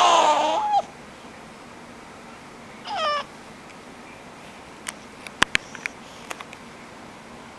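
Sleeping baby's high squeaky 'pony' noises. A strained call falls in pitch and stops within the first second, and a short falling squeak comes about three seconds in. A few small sharp clicks follow around five to six seconds in.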